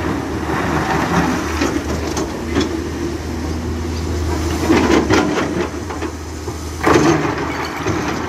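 Hyundai crawler excavator's diesel engine running steadily, with several bursts of rock clatter and scraping as the bucket works through a pile of crushed stone.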